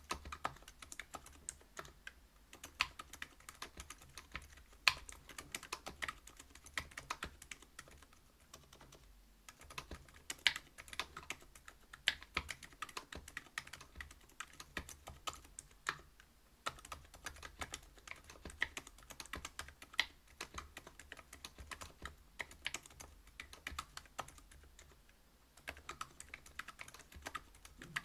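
Steady typing on a Whale 75 mechanical keyboard fitted with stock Silent Alpaca silent linear switches (62 g), a brass plate and PBT keycaps. Quick runs of keystrokes come with a few brief pauses.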